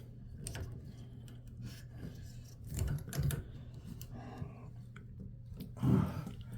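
A metal cartridge puller working a stuck tub-faucet valve cartridge loose, giving scattered small clicks and light scraping over a steady low hum. The cartridge is old and seized tight in the valve body.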